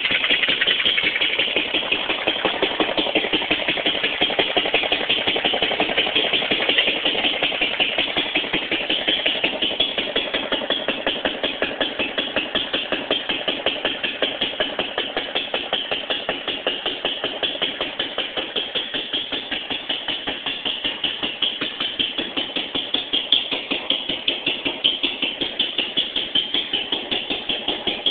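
Small single-cylinder Fairbanks Morse 1.5 hp stationary gas engine running steadily just after starting, with a rapid, even firing beat. It is not a hit-and-miss engine, so it fires regularly instead of coasting between bangs.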